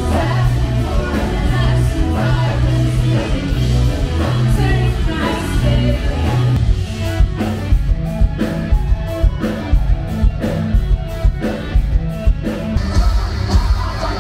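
A live rock band playing loudly, heard from among the audience: guitars and vocals over held bass-heavy chords, then a hard, steady drum beat from about seven seconds in.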